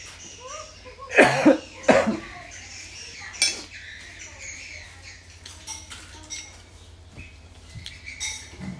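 Small clinks and clicks of bowls, plates and a spoon during a meal at a table, with a few short, loud vocal sounds between about one and two seconds in.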